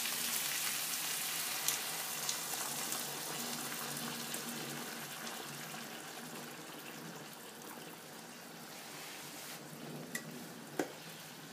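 Hot pan of fried black chickpeas and masala sizzling as their cooking water is poured in, the hiss slowly dying down as the liquid fills the pan. A single light knock near the end.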